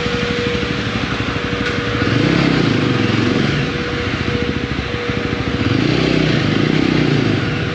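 Motorcycle engine running on the move, its firing pulses swelling louder twice, about two seconds in and again around six seconds, as it pulls harder.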